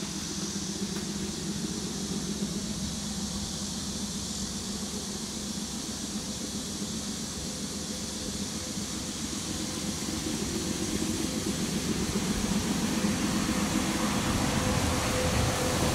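Steady outdoor background noise: wind on the microphone over a low, steady engine-like hum, growing louder over the last several seconds.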